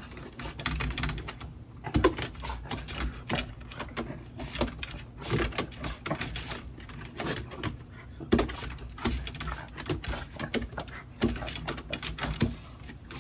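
A dog's paws and claws clattering on wooden deck boards as it hops up and down, in a run of irregular clicks and knocks with a heavier thump about every three seconds.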